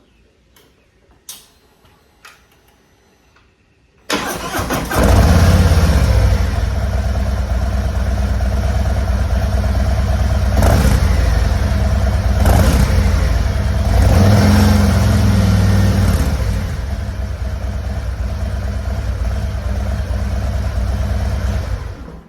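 2025 Harley-Davidson Road Glide's Milwaukee-Eight 117 V-twin on its stock slip-on mufflers: a few faint clicks, then the engine cranks and catches about four seconds in. It is revved briefly a few times, settles to an idle and is switched off near the end.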